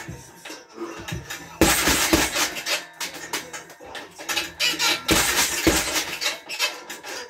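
Gloved punches landing on a 100-pound heavy bag in quick flurries of a cross, lead uppercut and cross. There are two main bursts, about one and a half and five seconds in, with a few single thuds between them, over background music.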